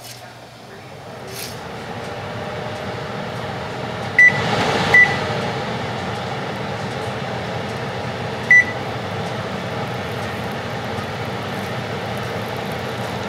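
A kitchen appliance's steady electric hum, building up over the first two seconds. Three short electronic beeps come over it, two close together about four and five seconds in and one more about eight and a half seconds in.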